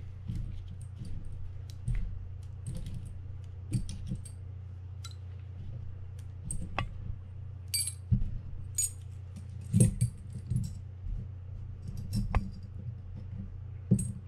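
Small steel fishing-reel parts (the level-wind worm-gear shaft, pawl and pins) clinking and tapping as they are handled and set down, a scatter of light metallic clicks at irregular intervals. A steady low hum runs underneath.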